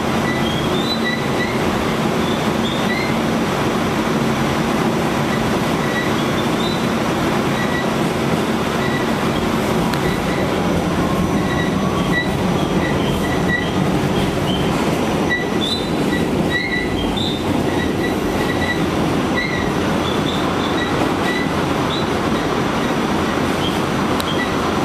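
R46 subway car running at speed, heard from inside the car: a steady rumble of wheels on rail with short, high wheel squeals scattered throughout.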